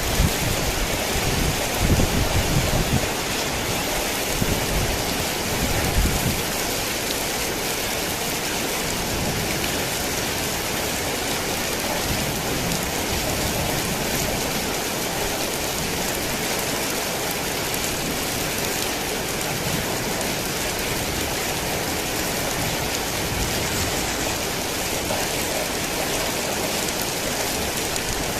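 Heavy rain falling steadily. A low rumble of thunder dies away over the first several seconds.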